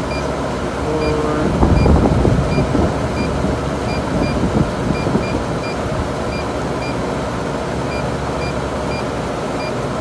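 Short, identical electronic beeps from a digital refrigeration manifold gauge as its button is pressed over and over to scroll through the refrigerant list, one to two beeps a second. Under them a steady low hum of the running refrigeration unit.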